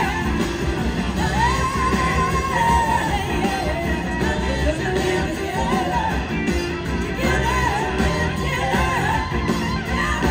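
A rock band playing live, with a woman's voice singing over electric guitar and drums. She holds one long note about a second and a half in, then sings shorter phrases.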